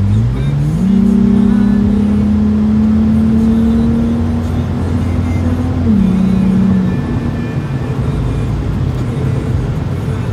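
Lexus IS250 2.5-litre V6 with its muffler deleted, heard from inside the cabin while accelerating. The exhaust note climbs in pitch over the first second and then holds a steady drone. About six seconds in it drops as the throttle eases, settling into a lower cruising hum.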